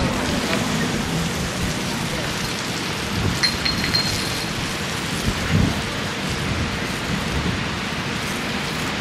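Wind buffeting a handheld camera's microphone: a steady rushing noise with a rumbling low end, swelling into stronger gusts a little after three seconds and again past halfway.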